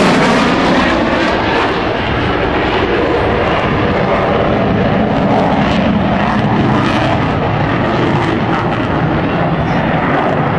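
Military jet fighter flying past at an air show display, its engine making loud, steady jet noise. There is a sweeping, phasing sound about the start.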